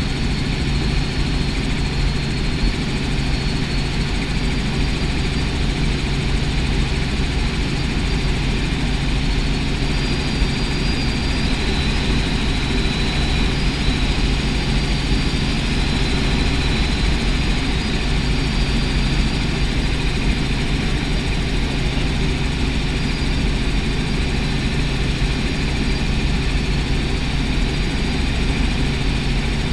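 Light helicopter in level flight heard from inside the cabin: steady engine and rotor drone with a constant low hum. A faint high whine drifts in and out in the middle.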